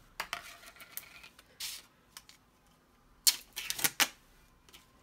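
Plastic tub of mascarpone cheese being handled and opened: a run of sharp plastic clicks and crackles, with the loudest snaps coming about three to four seconds in.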